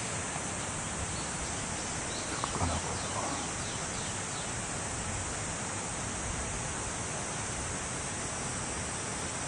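Steady rushing outdoor background noise with a high, even hiss, typical of a nearby stream, and a few faint light clicks about two to three seconds in as metal fire tongs move burning paper and a matchbox on the ash of a fire pit.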